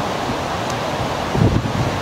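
Strong, gusty storm wind buffering the microphone over the steady wash of choppy lake water, with a heavier gust about one and a half seconds in.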